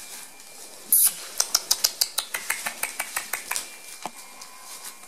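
Shredded newspaper crackling and rustling as puppies move through it: a loud rustle about a second in, then a quick run of sharp crackles for about two and a half seconds.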